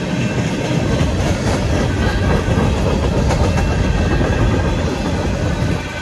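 Freight train tank cars and covered hopper cars rolling past close by, a steady loud rumble of steel wheels on rail. A couple of sharp clicks come as wheels cross rail joints.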